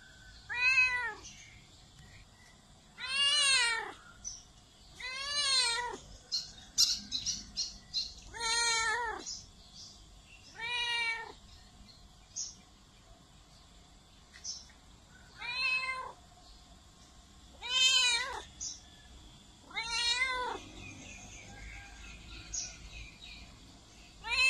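A domestic cat meowing over and over, about nine meows spaced two to three seconds apart, each one rising and then falling in pitch.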